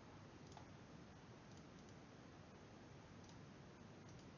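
Near silence: faint room hiss with a handful of soft, widely spaced computer mouse clicks.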